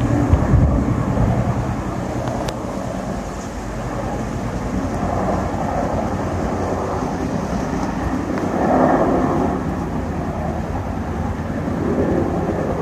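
Boeing CH-47 Chinook, a tandem-rotor helicopter, flying overhead: a steady rotor and engine rumble that swells and eases a few times.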